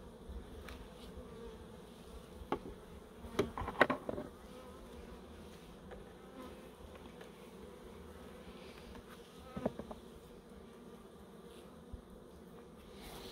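Steady buzzing hum of honey bees flying around an opened hive. There are a few short knocks about three to four seconds in, and another near ten seconds.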